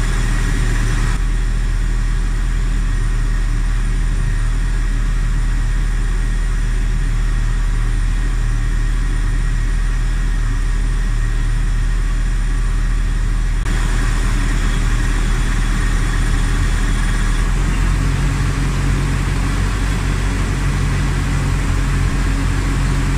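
Toyota Tarago van's engine idling steadily with the air-conditioning running, with a thin high whine from the fan belt, which the owner takes to be a little loose. The idle note shifts near the end.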